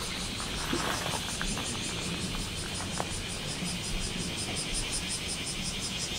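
Insects chirring in trees: a fast, even, high-pitched pulsing, several pulses a second, growing louder toward the end.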